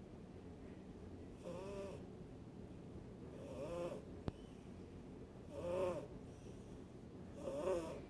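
Silver Bengal cat snoring: four snores in a steady rhythm, about one every two seconds. A single sharp click about halfway through.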